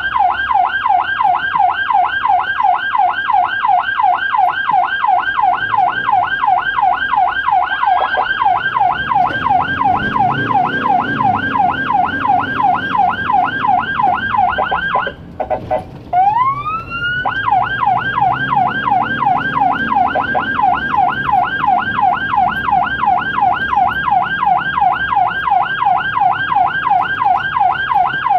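Ambulance siren on a fast yelp, about four sweeps a second, heard from inside the ambulance cab. About fifteen seconds in it cuts out for a moment, then winds up in one rising wail and goes back to the yelp, over the low rumble of the vehicle's engine.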